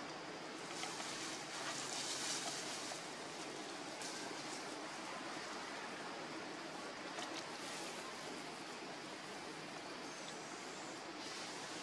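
Steady, even rushing hiss of outdoor background noise with no distinct event, swelling a little in its higher part about two seconds in and again near the end.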